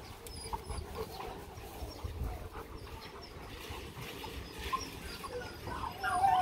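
Rottweiler whimpering in short, faint whines, then a louder, longer whine near the end.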